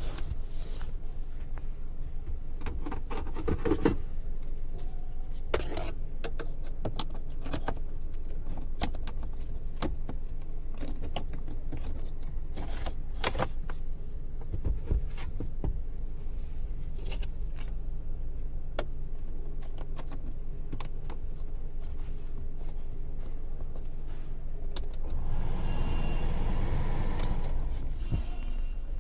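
Car AC blower motor running with a steady hum, with irregular clicks and rattles throughout. About 25 seconds in, a louder rushing of air swells for a few seconds and then drops back.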